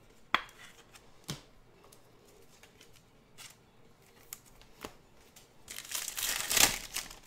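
Stiff chrome trading cards handled in the hands and slid past one another. A few light clicks come first, then a louder crinkling, sliding stretch of about a second near the end as the next card is moved to the front of the stack.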